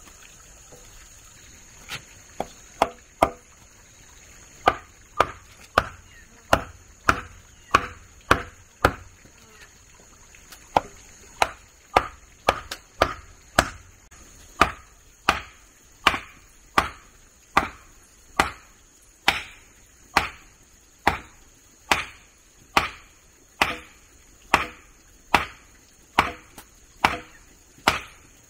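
Repeated chopping blows of a hand tool, about two sharp strikes a second, with a short pause about a third of the way through.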